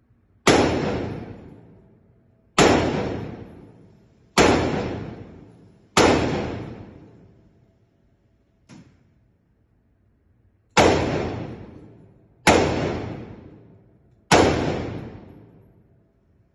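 Rifle fired seven single shots, one every couple of seconds with a longer pause midway, each crack ringing out in a long echo in an indoor range. A faint click comes during the pause.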